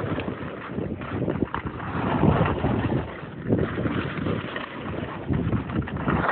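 Wind buffeting the microphone of a phone carried downhill on a ski slope: an uneven low rumble that swells and fades.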